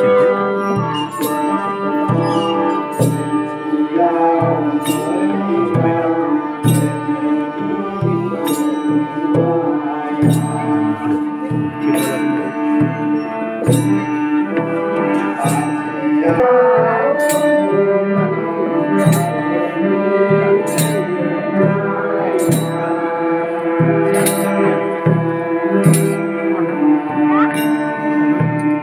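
Devotional folk music with held, organ-like melody notes over a steady drum beat, and a cymbal clash about every two seconds.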